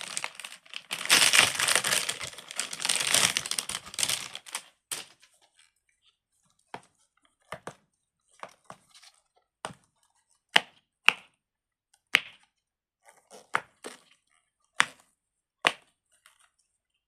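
A fidget spinner pop-it toy being handled: about five seconds of crinkly plastic rustling, then about a dozen short sharp pops at irregular intervals.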